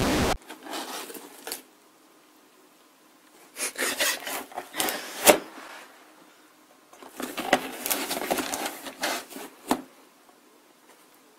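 A short burst of static, then a cat scrabbling inside a cardboard box: the cardboard rustles and scrapes in two spells of a couple of seconds each, with a few sharp knocks against the walls and flaps.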